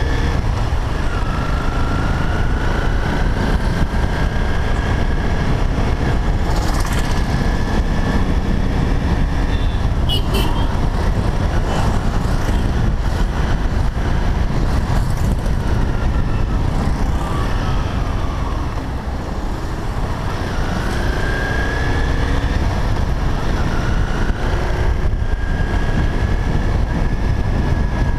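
A motorcycle ridden through city traffic: steady engine and road noise, with wind rushing over the microphone. A faint whistling tone drifts up and down in pitch now and then.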